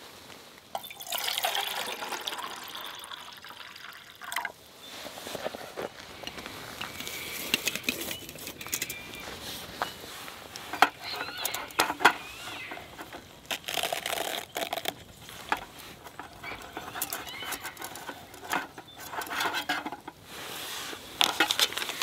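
Hot water poured from a pot into a metal camping mug, filling it for about three seconds near the start. Then scattered small clinks and rustles as a paper drip-coffee bag is handled and hung on the mug.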